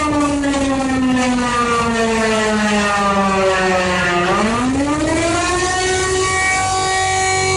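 Civil defence siren wailing as part of an emergency alert: its pitch slides slowly down for about four seconds, then rises quickly and holds steady near the end.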